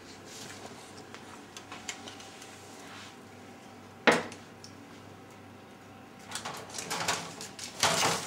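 Baking tin knocking and scraping on an oven's rack as it is slid in: one sharp clank about four seconds in, then a run of clattering near the end.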